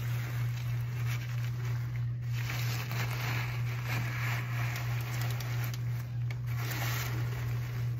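Crinkling and rustling of a large blue absorbent pad being unfolded and spread out by hand, strongest around the middle and again near the end, over a steady low hum.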